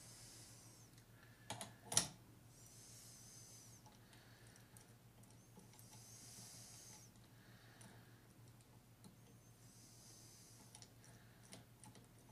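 Two sharp clicks about a second and a half and two seconds in as the angle is set on a shear-sharpening machine, then faint, short hisses now and then.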